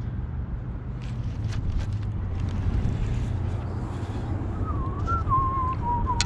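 Steady low rumble of wind on the microphone and the boat, with a wavering whistled tone that starts about two-thirds through and glides up and down. Right at the end a short splash comes as a bass slaps at the lure on the surface.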